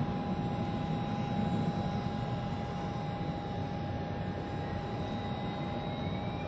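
Airbus A350's Rolls-Royce Trent XWB jet engines running as the airliner taxis: a steady rumble with a constant high whine over it.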